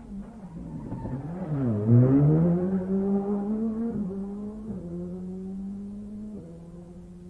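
A rally car passing close at speed. Its engine note falls sharply and is loudest about two seconds in, then climbs as the car pulls away, with three gear changes at about four, five and six and a half seconds.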